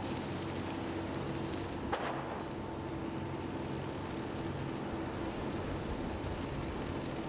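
Fire engines' motors running steadily to pump water, a constant low hum over a rushing background of the blaze and hose streams, with one sharp pop about two seconds in.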